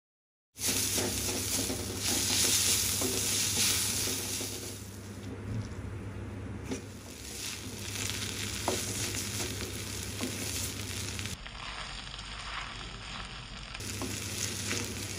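Vegetable hakka noodles sizzling as they are stir-fried in a wok, with a spatula scraping and tossing them and giving occasional short knocks against the pan.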